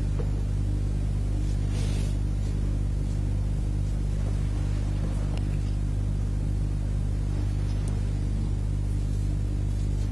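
A steady low hum made of several evenly spaced tones, unchanging throughout.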